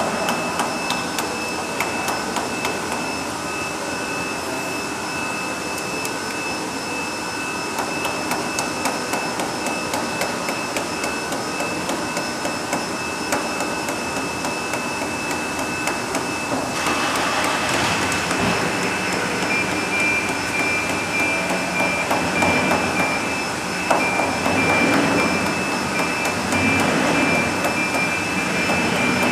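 Steady machine hum with a high whine, overlaid with frequent light clicks and taps from hand-tool work on a guillotine paper cutter's knife. About 17 seconds in, a louder rushing noise joins and carries on.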